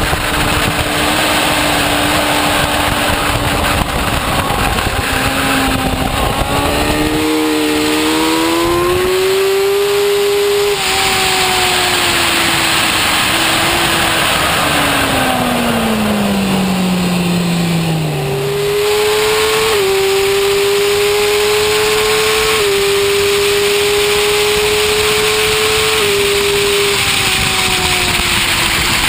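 Motorcycle engine heard from onboard with heavy wind rush. It pulls up through the revs, upshifts, and drops in pitch through a long slowdown about halfway. Then it accelerates again with three more upshifts in the second half.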